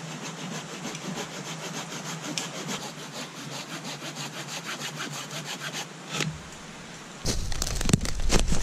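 Bahco Laplander folding pruning saw cutting through a thin standing tree trunk near its base in steady, quick back-and-forth strokes for about six seconds. After that the sawing stops, and a louder low rumble with a few knocks takes over.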